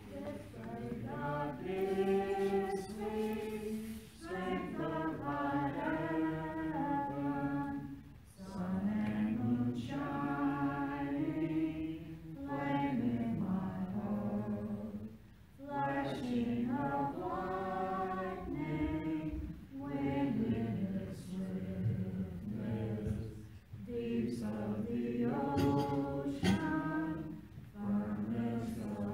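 Choir singing a hymn in phrases of a few seconds separated by short breaks: the entrance hymn at the start of a Mass.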